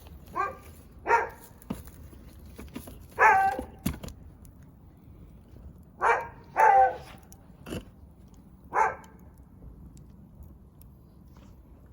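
A dog barking six times in short single barks, spread irregularly over the first nine seconds, with a few sharp pops from the burning wood fire in between.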